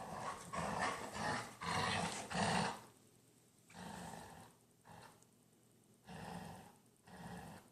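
Dog growling in play during a tug-of-war: a run of loud rough growls for about the first three seconds, then shorter, quieter growls with pauses between.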